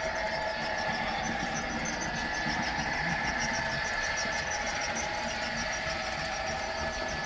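Amtrak model train running along the layout track: a steady engine-like hum with a thin high whine and rapid, regular light ticking.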